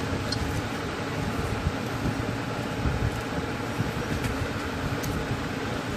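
Steady low background rumble, like a running fan or air conditioner, with a few faint clicks.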